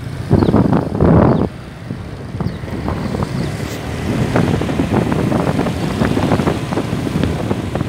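Wind buffeting the microphone while riding a motorbike on a rough dirt road, over the engine and road rumble, with scattered knocks and rattles from the bumps. The wind gusts loudest in the first second and a half, then settles to a steadier rush.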